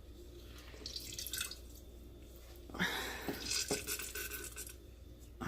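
Lemon juice dripping and splashing into a jar as a lemon is squeezed by hand, in a short bout about a second in and a longer one from about three seconds in, with a couple of small clicks.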